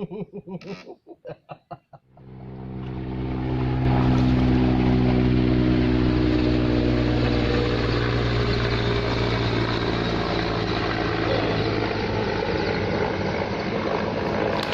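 A small boat engine starts up about two seconds in, grows louder over a couple of seconds, then runs at a steady pitch.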